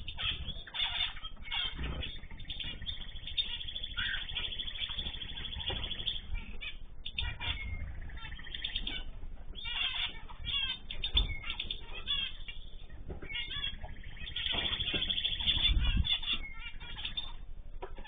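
Aviary of small cage birds such as zebra finches, calling and chirping repeatedly, with short wing flutters as birds fly between perches.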